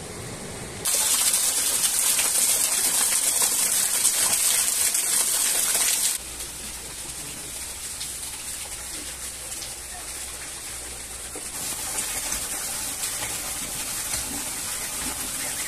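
Rushing water of a waterfall, a steady hiss that jumps much louder about a second in, drops back abruptly about six seconds in, and rises somewhat again near the end.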